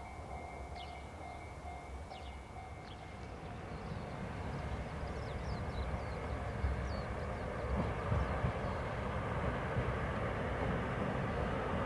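A train approaching along the line, its running noise building steadily louder through the second half, with a few short bird chirps in the first seconds.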